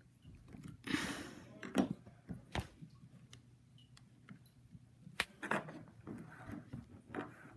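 Hands working a GoPro camera into its plastic mount on a surfboard: scattered small plastic clicks and knocks, with a short rustle about a second in.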